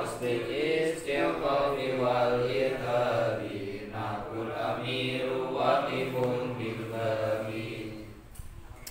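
Melodic chanting of Arabic verse by male voices, with long held notes that rise and fall, stopping shortly before the end.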